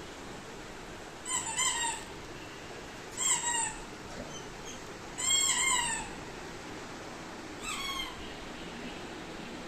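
Cat meowing: four short calls, each falling in pitch, spaced about two seconds apart.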